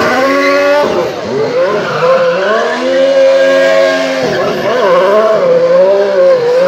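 Ferrari Formula 1 car's engine revving hard as it spins donuts, its pitch climbing, holding high, then wavering up and down, with the rear tyres spinning and squealing on the tarmac.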